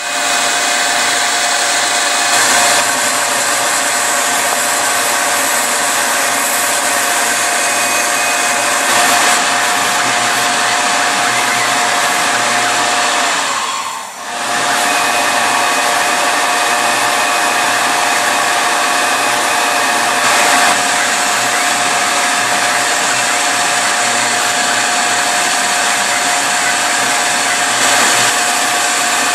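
Tormach PCNC 770 CNC mill's spindle running at high speed as the end mill cuts pink insulation foam: a steady, loud rushing noise with a constant whine in it, briefly dipping about halfway through.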